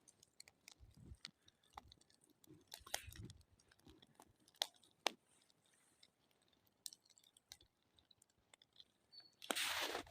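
Small wood campfire crackling: faint, irregular pops and snaps of burning twigs. A louder rush of noise comes near the end.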